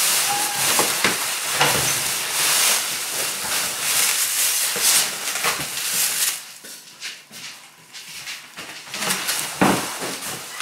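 Packaging being handled while a microwave is unpacked from its carton: crinkling, rustling and scraping of plastic and cardboard, which eases off about six and a half seconds in, with a sharp knock near the end.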